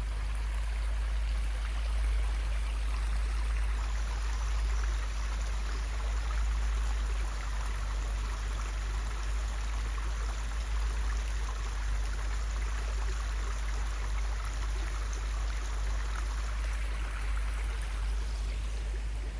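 A creek running over rocks: a steady rush of flowing water, with a low rumble underneath.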